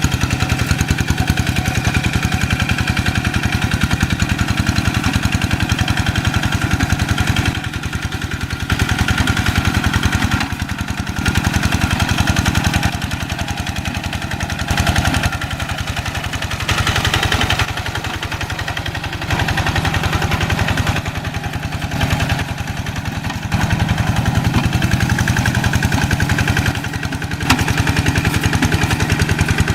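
Diesel engine of a Quick G1000 two-wheel hand tractor running with a fast, even firing beat. It gets louder and quieter several times as the load or throttle changes.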